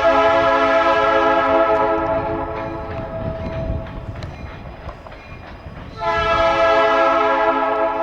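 Escanaba & Lake Superior locomotive air horn blowing two long blasts, several tones at once. The first ends about two and a half seconds in. The second starts about six seconds in, with the train's low rumble between them.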